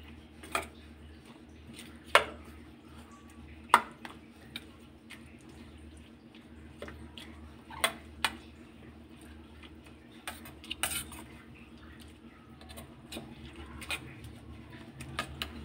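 Steel spoon clinking and scraping against a stainless-steel bowl as a mash of roasted tomatoes is mixed. Sharp clinks come irregularly, every second or two, over a faint steady hum.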